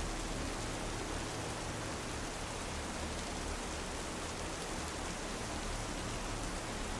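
Steady rainfall, an even hiss of rain with no breaks or single loud drops.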